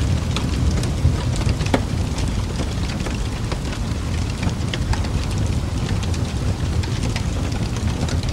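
Steady rain noise with a deep low rumble and scattered sharp drop ticks, playing as the audible masking track of a subliminal.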